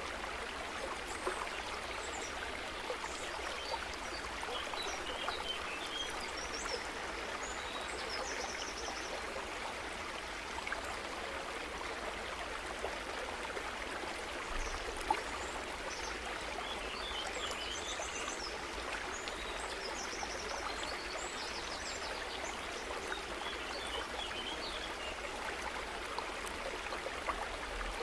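Steady rushing noise like running water from a stream, with faint high chirps now and then.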